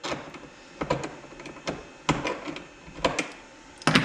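Handling noise: a few irregular sharp clicks and knocks as a hold-down clamp and the workpiece are worked by hand on a CNC router's spoilboard, the loudest near the end.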